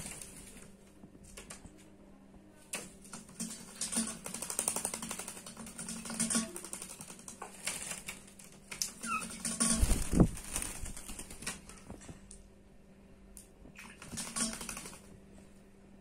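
A myna bathing in a metal bowl of water, beating its wings so the water splashes and spatters in rapid fluttering bursts. The bursts come several times with short pauses between, the biggest about ten seconds in.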